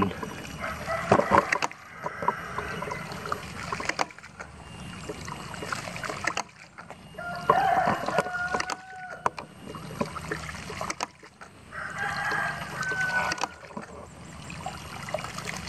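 Water running and splashing around a pipe setup in mud, with a few sharp knocks. A rooster crows twice in the background, about halfway through and again about three-quarters of the way in.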